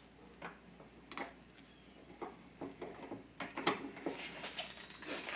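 Light clicks and knocks of suspension bushings and metal parts being handled at a bench vise, coming thicker a little past halfway, then a rustle near the end.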